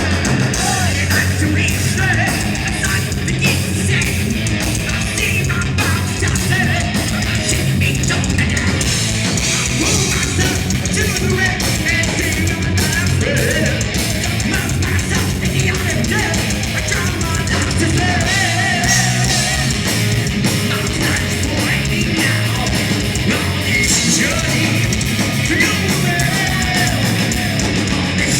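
Heavy metal band playing live through a club PA: loud distorted electric guitars, bass and drums in a continuous driving passage.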